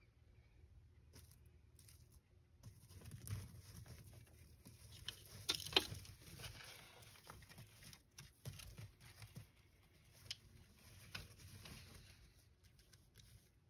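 Faint, scattered clicks and rustling as a savanna monitor grips and tugs at a hornworm held in plastic feeding tongs, with the loudest clicks about six seconds in.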